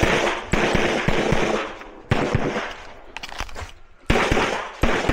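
A string of loud pistol shots, about eight, some in quick pairs and some with longer gaps, each with a short echoing tail.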